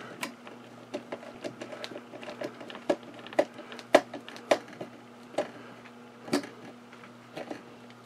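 Hand screwdriver driving a small screw through a metal latch plate into a wooden case: irregular small clicks and creaks as the screw is turned, with a few sharper clicks in the middle, over a steady low hum.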